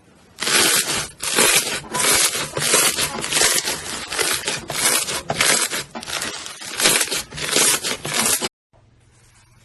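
Slime being squeezed and pressed by hand, making crunchy, crackling squishes about twice a second that stop abruptly near the end.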